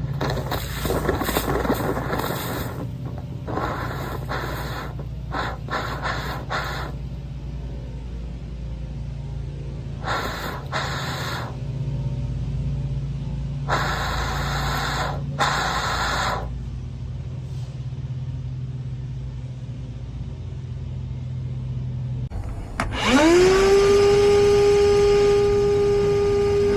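A condensate drain line being cleared, heard as several bursts of rushing hiss, each two to three seconds long, over a steady low hum of running equipment. About 23 seconds in, a motor whine rises quickly and then holds at a steady pitch.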